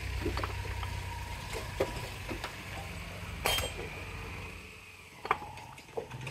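Steel gears on a ZF gearbox shaft clinking and knocking as they are worked by hand: a handful of separate metal knocks, the loudest about three and a half seconds in. A steady low hum underneath dies away about five seconds in.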